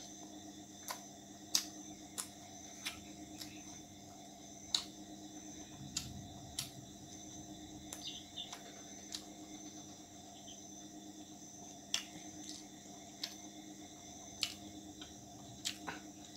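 Eating sounds close to the microphone: a man chewing roti with chicken curry, with irregular sharp mouth smacks and clicks every second or so over steady faint high-pitched background tones.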